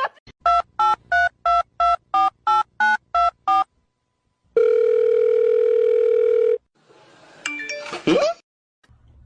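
Telephone keypad dialing: about ten quick two-tone beeps, roughly three a second. After a short pause comes a steady telephone tone lasting about two seconds. Near the end there is a brief jumble of short electronic tones.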